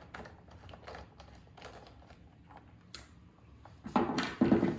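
Light clicks and taps of a wrench working the collar on a pressure washer's pressure switch box, ending in a louder burst of rapid clicking about four seconds in.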